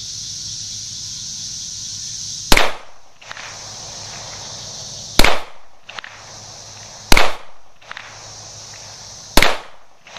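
Four single shots from a Springfield XDM 5.25 pistol in .40 S&W, fired at a slow, deliberate pace about two to two and a half seconds apart, each followed by a brief echo.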